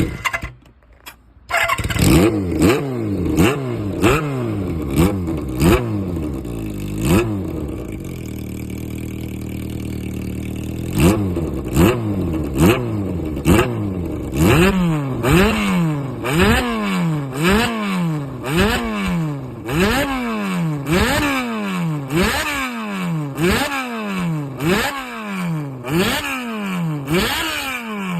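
Motorcycle engine breathing through a handmade aftermarket silencer with an aluminium baffle, blipped over and over in a rhythmic throttle 'call'. Each rev jumps up and sags back, about once a second, with a steadier held stretch about a third of the way in, then an even, regular rhythm through the second half.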